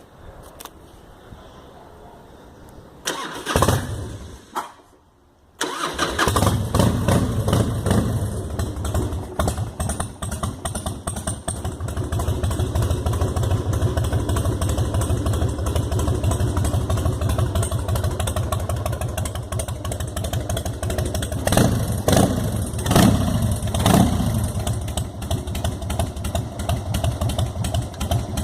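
Carbureted Harley-Davidson Softail 1450 cc V-twin being started: a short burst of cranking, a brief pause, then about five and a half seconds in the engine catches and settles into a steady idle. Three quick throttle blips come near the end.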